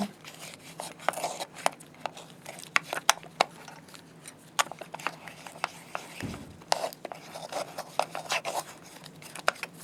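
Small metal slit-lamp parts being handled and fitted together by hand: scattered light clicks and taps with some rubbing.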